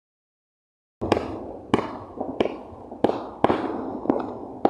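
About a second of dead silence, then small consumer fireworks going off: sharp cracks roughly every two-thirds of a second, each dying away quickly.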